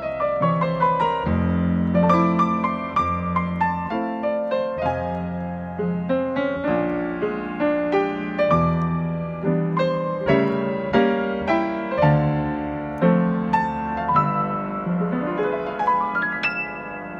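Yamaha grand piano played with both hands: a flowing run of quick treble notes over held bass notes and chords, growing softer near the end.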